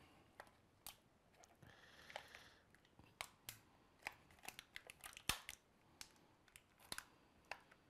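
Faint, scattered clicks and snips of a small knife cutting at the clear plastic bag and tray that hold an action figure, with a short soft rustle of plastic about two seconds in.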